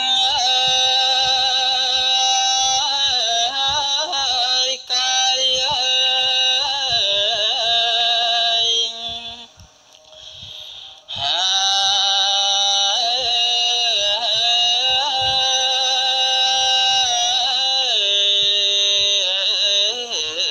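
A young Buddhist monk chanting a melodic verse into a microphone, heard amplified: one voice holding long notes that slide up and down between pitches. Two long phrases, with a break of about two seconds near the middle.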